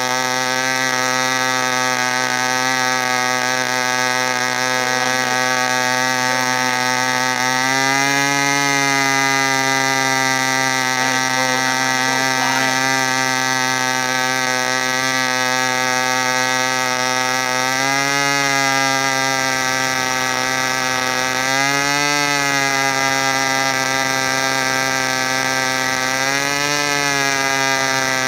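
Super Tigre two-stroke glow-plug model airplane engine running steadily at high speed on a test stand. Its pitch briefly rises and settles back about four times.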